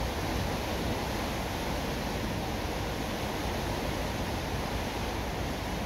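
Steady, even rushing of water in a lock chamber while the lock gates are shut around a barge.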